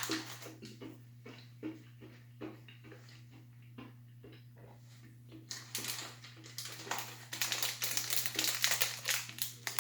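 Light scattered clicks, then about four seconds of denser crackling from about halfway through, as a small candy package is handled and opened.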